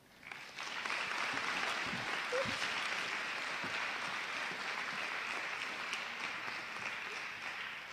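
Audience applauding, starting about half a second in and fading near the end.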